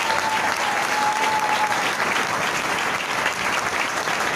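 Audience applauding, a steady dense clapping. A single held high note sounds over it and stops about a second and a half in.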